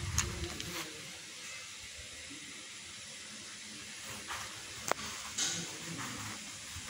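Steady hiss of background noise with a few light clicks, the sharpest about five seconds in.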